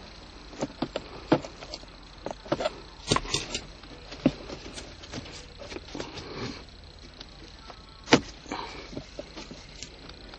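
Plastic shift-console trim cover of a 2007 Toyota Corolla being pried up with a putty knife: a run of irregular clicks and knocks from the plastic and its clips, sharpest about three and eight seconds in.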